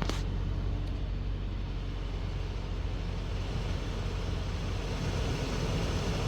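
Steady hum and rush in the cabin of a 2020 Mitsubishi Outlander, with the AC blower motor running. The blower no longer cuts out on a left turn now that the water that got into it is cleared.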